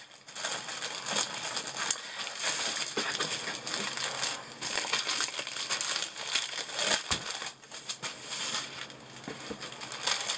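Plastic packaging crinkling and rustling as a rolled diamond-painting canvas in its plastic wrap is handled and a bagged bundle of drills is pulled out of it. The crinkling is nearly continuous, easing off briefly near the end.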